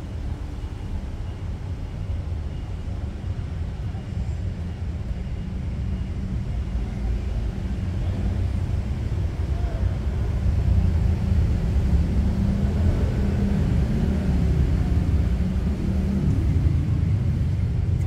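Steady low rumble that grows louder from about ten seconds in, with no ball strikes heard.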